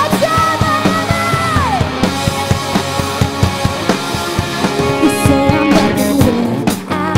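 Country-rock band music with a drum kit keeping a steady beat. A long held note slides down about two seconds in.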